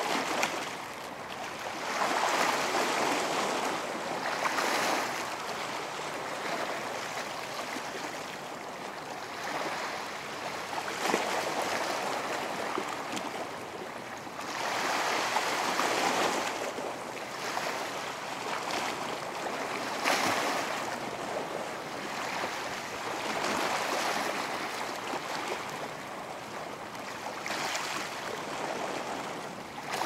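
Atlantic Ocean surf: waves breaking and washing up the beach, a steady hiss of water that swells and eases every few seconds.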